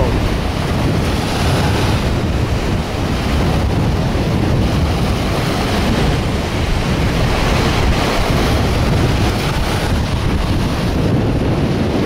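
Wind buffeting the microphone over small waves breaking on a sandy shore: a steady rushing noise with a heavy low rumble.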